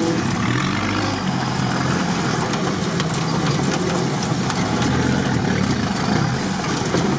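Off-road vehicle's engine running steadily, heard from inside the cabin as it drives a wet, muddy forest track, with a few light clicks and rattles.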